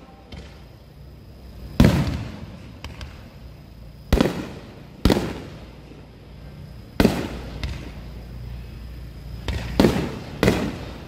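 Aerial fireworks shells bursting: six loud bangs spaced a second or two apart, each trailing off in an echo.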